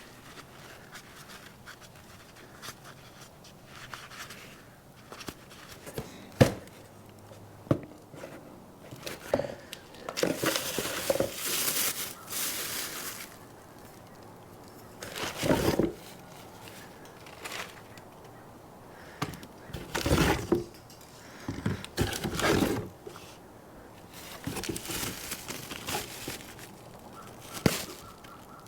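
Irregular clicks, knocks, scrapes and rustling from hands and tools at work on a motorcycle during an oil change, with a few longer stretches of scraping or crinkling.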